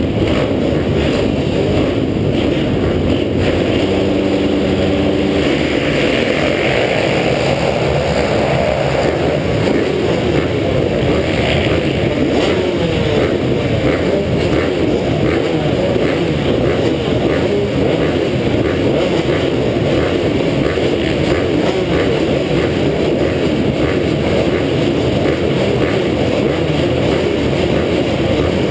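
Two-stroke motocross bikes, the rider's own KTM 125 SX among them, running together on the starting line: a loud, steady mass of engine noise.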